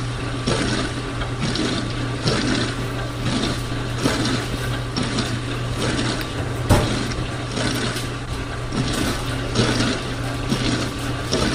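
Dishwasher running: a steady low hum with a churning that swells about once a second. One sharp click about two-thirds of the way in.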